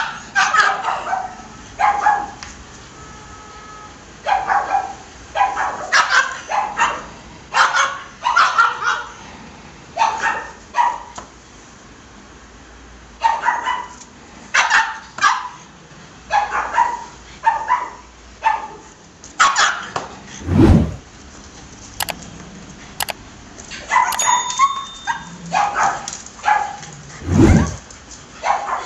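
Dogs barking in short, repeated bursts and clusters, with a lull of a couple of seconds midway. Two dull thumps come in the second half.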